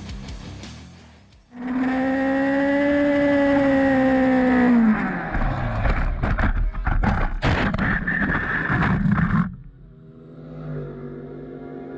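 Honda CBR1000RR inline-four engine running hard, its revs sagging and then dropping away as the bike goes down, followed by about four seconds of harsh scraping with sharp knocks as the crashed sportbike slides along the track. The scraping cuts off suddenly, leaving a quieter engine note.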